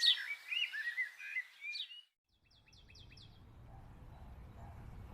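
Wild birds chirping with short rising calls, cut off abruptly about two seconds in; after a moment of silence a faint rapid series of short repeated bird notes starts over a low, steady rumble of wind or ambient noise.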